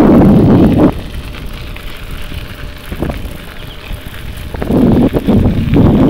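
Wind buffeting the microphone in gusts, loudest for the first second and again from about two-thirds of the way in, over a steady low rumble with scattered clicks and rattles.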